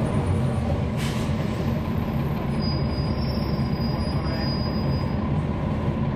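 Cummins ISL9 inline-six diesel of a NABI 416.15 transit bus running steadily, heard from on board. A short hiss of air comes about a second in, and a thin high whistle sounds through the middle few seconds.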